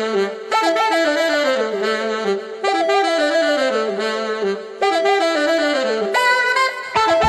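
Background music: a reedy solo melody line playing a short phrase that steps downward in pitch, repeated about every two seconds with brief breaks between.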